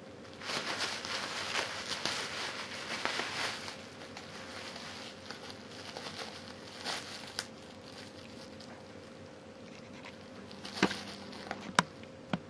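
Plastic bubble wrap crinkling and rustling as a cat claws and bites at it, loudest in the first few seconds, then lighter crackling. A few sharp snaps come near the end.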